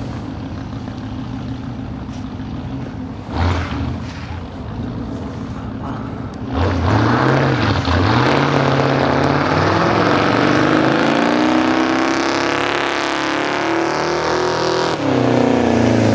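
Small-block 350 V8 in a 1935 Ford ratrod dually idling, with one quick throttle blip about three and a half seconds in. About six and a half seconds in it is revved hard and held at high revs for a burnout, its pitch rising and falling.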